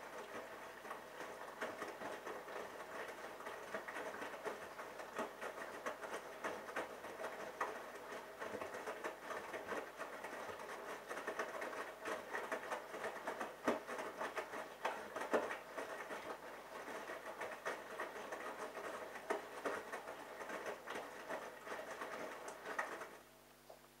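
Bosch Logixx washing machine's drum turning with a wet load of cotton inside, the clothes and water tumbling with a dense, steady patter of slaps and splashes; the drum stops about a second before the end.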